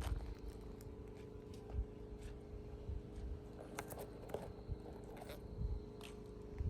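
A steady low mechanical hum, with a few scattered clicks and soft knocks.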